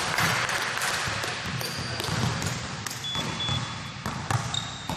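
Basketball bouncing on a gym's wooden-sprung court floor, a handful of scattered thuds, with a few short high squeaks in the second half, all echoing in a large hall.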